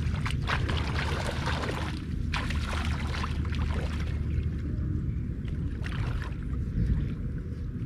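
Water splashing and sloshing in three bursts, over a steady low rumble.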